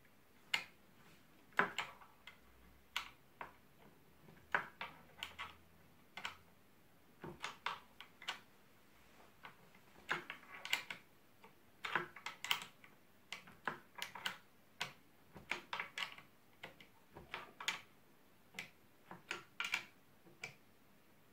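Irregular light clicks and ticks of a hand tool turning the stock screw at the butt of a Sauer 303 rifle, fastening the stock onto the action.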